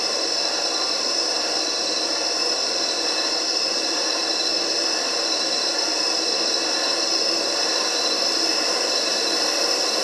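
Steady static-like hiss with a few faint steady tones in it, at an even level throughout.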